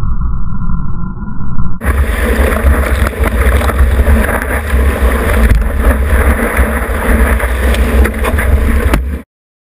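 Rushing water and spray of a wave over a surfboard-mounted action camera, with wind buffeting the microphone. It is muffled for the first couple of seconds, then opens into a loud, full hissing wash with a heavy low rumble, and cuts off abruptly near the end.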